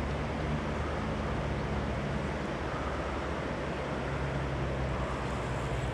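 Steady rushing of a fast river's current, an even noise with no distinct events.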